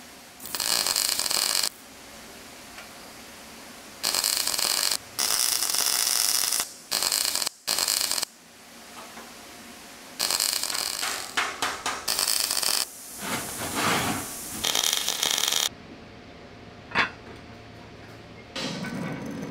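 Welding on steel fabrication, a string of hissing bursts of up to about a second and a half each that start and stop abruptly. A sharp click comes near the end.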